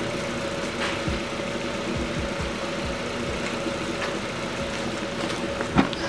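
Car engine idling steadily, the donor car running through jumper cables to charge a dead battery before a jump-start. A single sharp knock near the end.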